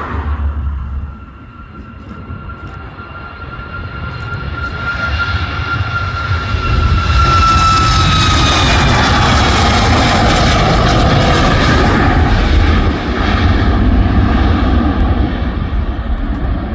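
Jet airliner departing at takeoff thrust: the engines' high whine grows louder over about six seconds, drops in pitch as the aircraft passes, and gives way to a loud steady rumble.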